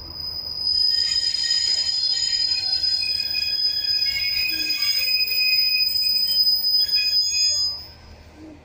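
Passenger train's brakes squealing as it slows to a stop at a platform: a loud, high-pitched squeal made of several shrill tones, which cuts off near the end as the train halts.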